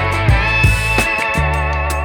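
Background music: a guitar-led instrumental with a steady beat and sustained bass notes.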